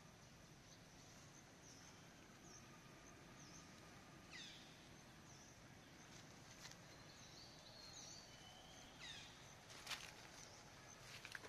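Faint forest ambience: a steady high-pitched insect drone with a few short high chirps through the middle. Near the end come brief crackles of dry leaves rustling as the baby macaque moves into the undergrowth.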